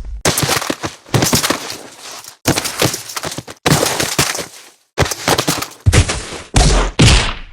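A run of punch and fight sound effects played one after another: about eight short clips of sharp smacks and thwacks, several of them quick flurries of hits, each separated by a brief silence.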